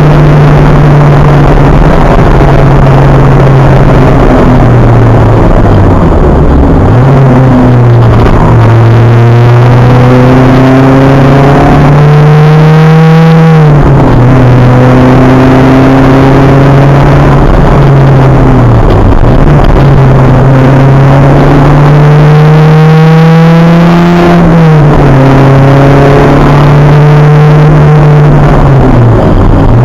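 Acura Integra race car's four-cylinder engine at racing speed, loud in the cabin over heavy road noise. The revs climb and drop sharply twice, about halfway through and again near the end, and briefly dip twice in between.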